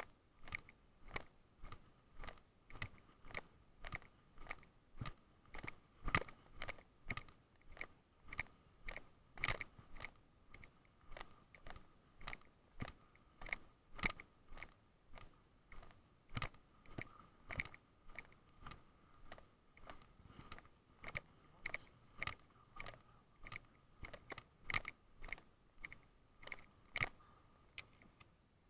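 Footsteps on grass while walking, picked up through a hand-held action camera as a regular dull crunch or knock about twice a second, with a faint steady high tone underneath.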